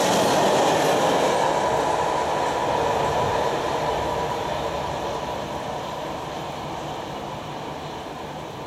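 Freight train wagons rolling past on the rails. The noise holds steady for about three seconds as the last wagons go by, then fades away as the train moves off.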